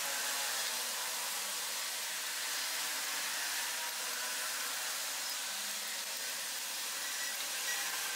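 A steady hiss, even throughout, with no distinct clicks or knocks standing out.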